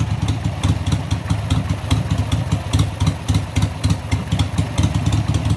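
Carbureted Harley-Davidson V-twin engine idling with an uneven, pulsing beat, while its idle speed is set at the CV carburetor's idle screw.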